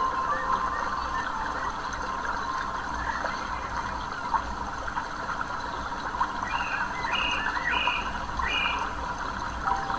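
Running stream water babbling steadily, with a bird calling four short notes near the end.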